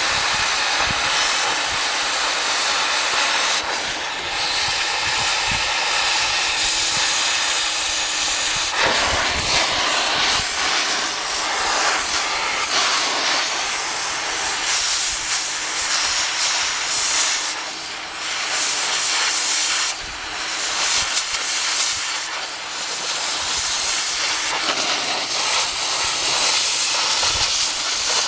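Oxy-fuel cutting torch hissing steadily as it cuts gouges into the thick steel ear of an excavator bucket. The hiss drops off briefly a few times.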